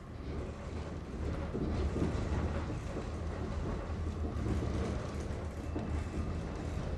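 Tram running, heard from inside the car: a steady low rumble with rattling noise, growing louder over the first two seconds.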